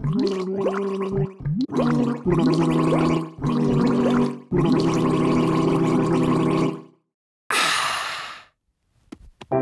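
Cartoon sound effects for wobbling animated panels: a wobbly, pitched warbling with repeated quick upward slides, in several spurts. It stops about seven seconds in and is followed by a short fading whoosh as the picture slides away.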